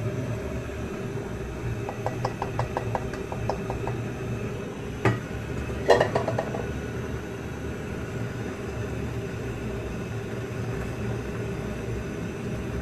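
Metal cookware knocking as a frying pan is emptied into a stainless steel pot: a run of quick, even ticks about two seconds in, a sharp knock near five seconds and a clatter of metal just before six, over a steady low hum.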